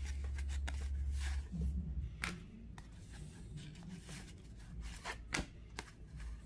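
1984 Fleer cardboard baseball cards being slid and flipped through by hand, making soft swishes and small clicks at irregular intervals. A low hum sits under the first two seconds.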